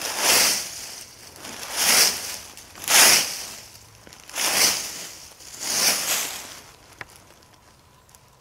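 Slow footsteps crunching through dry fallen leaves, five steps a second or more apart, stopping about six seconds in, then a single faint click.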